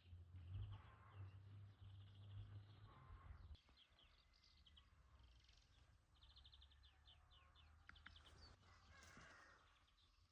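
Faint birdsong: small birds chirping and giving short rapid trills. A low steady rumble underlies the first few seconds and stops about a third of the way in.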